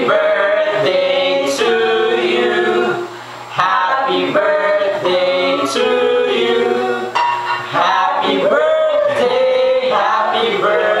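A small group of men and women singing together unaccompanied, with a short pause about three seconds in.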